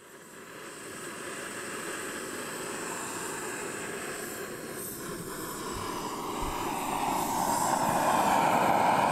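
Canister stove burner running under a pot, a steady rushing noise of gas flame that grows louder over the last few seconds.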